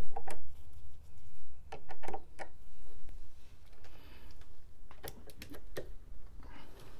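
Wrench tightening the nuts on a battery hold-down bracket: scattered metal clicks and clinks in small clusters, over a low steady hum.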